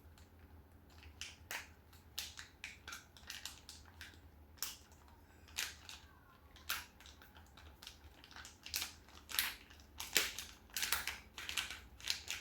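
Irregular crunching, many short sharp crunches at uneven intervals, getting louder and closer together near the end.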